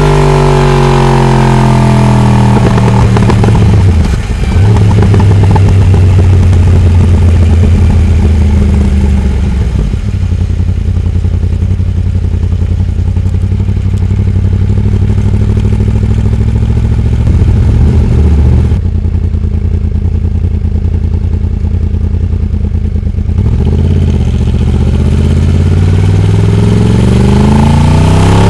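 Yamaha R1 crossplane inline-four motorcycle engine, heard onboard, with its uneven big-bang firing note. Revs fall at the start as the bike slows, the engine runs low and steady through the middle, and near the end it revs up again as the rider accelerates.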